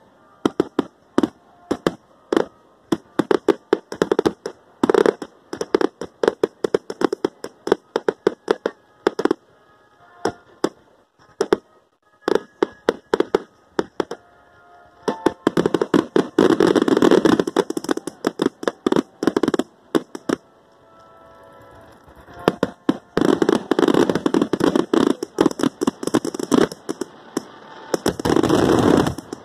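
Aerial fireworks finale: a rapid run of shell bursts banging and cracking one after another. About halfway through, and again near the end, the bangs come so fast they merge into a continuous crackling barrage, ending in a last dense burst.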